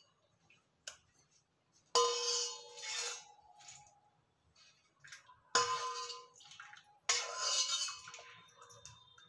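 Steel perforated skimmer knocking against a steel pot about three times while blanched spinach is scooped out, the pot ringing after each knock, with water splashing off the scoop.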